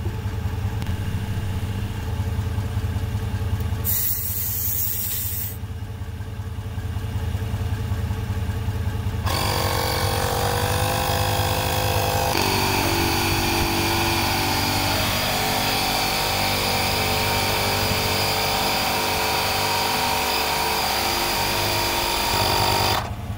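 Portable 12-volt tire inflator: a short hiss of air as its chuck is pressed onto the tire valve, then, about nine seconds in, its compressor starts and runs steadily, pumping the tire up toward a 40 PSI preset, later heard at fast-forwarded playback. A vehicle engine idles beneath it.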